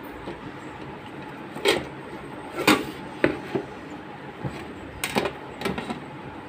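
A few sharp knocks and clicks as a SATA surveillance hard drive is handled and fitted into a DVR's metal case, the loudest just under three seconds in.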